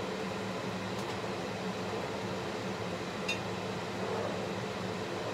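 Kitchen range hood extractor fan running with a steady hum over a low hiss. A faint click sounds about three seconds in.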